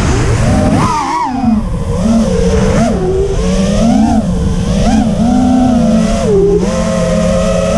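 FPV quadcopter's motors and HQProp Ethix P3.5 propellers whining, the pitch swooping up and down with throttle, over wind rush on the onboard microphone. A sharp rise comes about a second in and a dip shortly before the end, after which the pitch holds steady.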